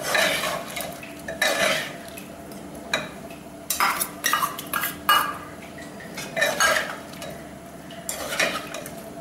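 Steel spatula stirring and scraping against the inside of an aluminium pressure cooker pan, in about seven short bursts of clinks and scrapes with pauses between. A faint steady hum runs underneath.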